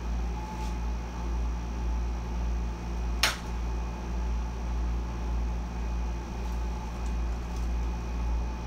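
Air conditioner running on full blast, a steady low hum, with one sharp click about three seconds in.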